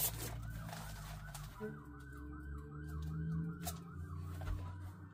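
Emergency vehicle siren in a yelp pattern, its pitch rising and falling about three times a second, then settling into a long, slowly falling tone, heard over a steady low hum. A few short knocks from handling the box and paper fall in between.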